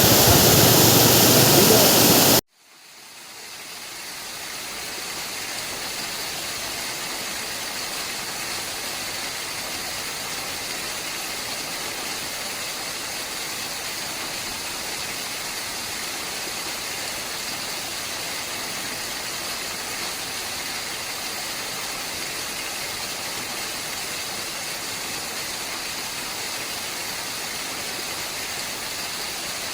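Waterfall rushing, loud and full at first. It cuts off abruptly after about two and a half seconds, then fades back in as a quieter, steady, hissy rush of falling water.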